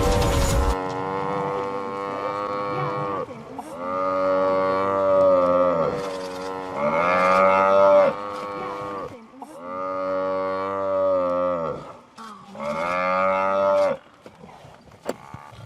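Buffalo mooing: about five long, drawn-out calls in a row, each dropping in pitch as it ends.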